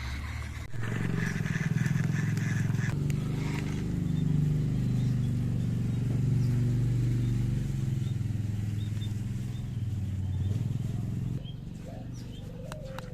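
Small electric drive motor and gearbox of a cardboard RC jeep whirring as it drives, the pitch shifting up and down with load. It starts about a second in and cuts off near the end.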